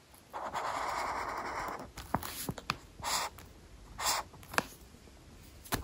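Felt-tip highlighter drawn across planner paper: one long scratchy stroke of about a second and a half, then two short strokes, with a few light ticks of the pen tip between them.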